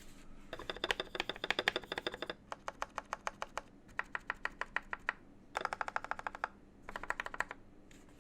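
Stabilized keys on a TM680 mechanical keyboard pressed rapidly over and over in five bursts of clicks. The stock plate-mounted stabilizers have been lubed with Krytox 205 G0 and the bump on their stems trimmed off to stop them hitting the PCB.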